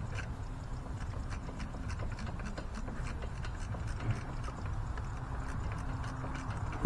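Irregular light clicks and taps from hands and tools working on parts in a truck's engine bay, over a low steady hum.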